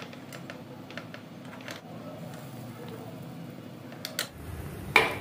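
A steel spoon clicking and scraping against the cavities of an appam pan as the appams are turned over. The clicks are light and irregular, a few a second, with one louder knock near the end.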